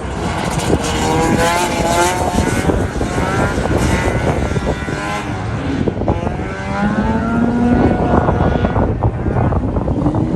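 Autocross race car's engine revving hard and easing off as it drives the course, its pitch climbing and falling several times.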